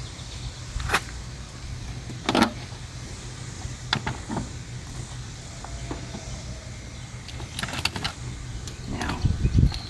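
Several sharp plastic clicks and knocks as two-piece plastic push-in trim screws are pressed into a pickup's door panel. A cluster of clicks comes near the end, followed by louder handling bumps, over a steady low hum.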